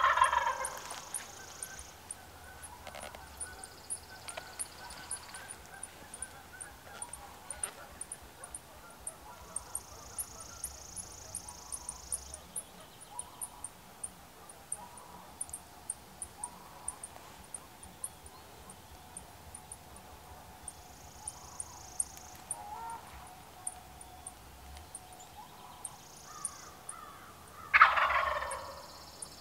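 A wild turkey gobbler gobbling twice: once at the start and once near the end, each a loud, rattling call that falls in pitch and lasts about a second and a half. Faint, rapid, high-pitched chirping goes on in between.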